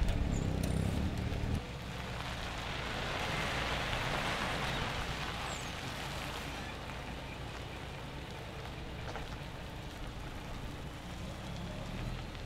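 A heavy lorry's diesel engine running close by, broken off sharply about a second and a half in. Then comes a rushing hiss for a few seconds over the lorry's steadier, more distant engine as it drives away, slowly fading.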